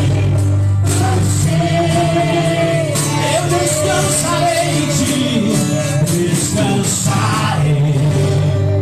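Congregational worship music: band with bass, percussion and a sung melody line, played loud and steady.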